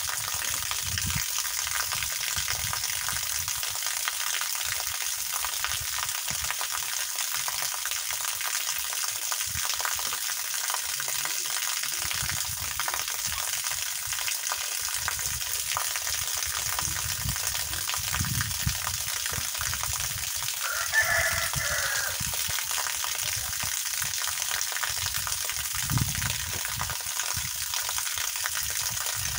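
Steady hiss of water pouring from a garden hose and splashing onto the grass. A short animal call cuts in about two-thirds of the way through.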